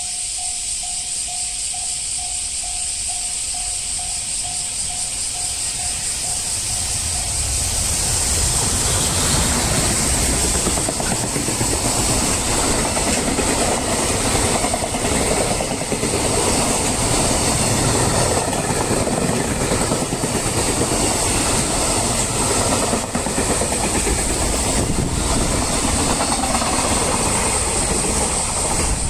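Japanese level-crossing warning bell dinging in a steady repeating pulse. About eight seconds in, it is drowned out by a train passing over the crossing, a loud rumble and clatter of wheels on rail that continues for about twenty seconds. A steady high hiss runs underneath throughout.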